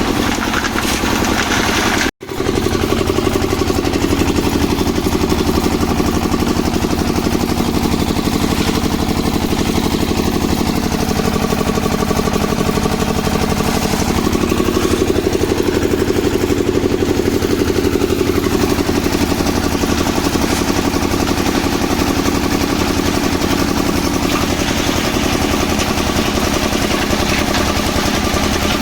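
Engine running steadily at a constant speed, most likely a concrete mixer's engine on the building site, cut off for a split second about two seconds in.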